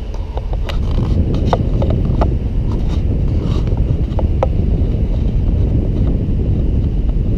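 Car driving slowly, a steady low rumble of road and engine noise, with scattered light clicks and ticks over the first few seconds.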